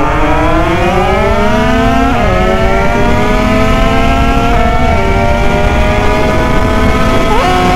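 Derbi two-stroke engine with an Italkit 80cc kit pulling hard at full throttle, its note rising and then dropping sharply at gear changes about two and about four and a half seconds in, then climbing again. Heavy wind rumble lies under it.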